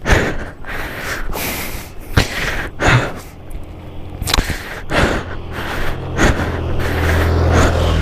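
A man breathing hard and unevenly, out of breath from pushing a broken-down scooter uphill. A low engine hum comes in near the end.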